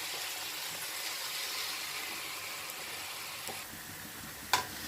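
Hot cooking oil sizzling steadily as small balls of cabbage-and-flour dough for gobi are dropped in to deep-fry. One short sharp knock near the end.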